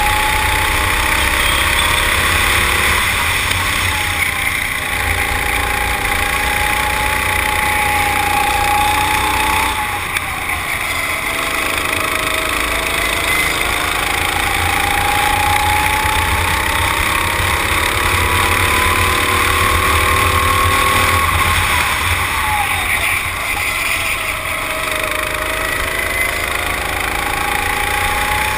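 Kart engine heard from on board at racing speed, its pitch climbing slowly on the straights and dropping sharply when the driver lifts for corners, about 10 and 21 seconds in, over a steady low rumble.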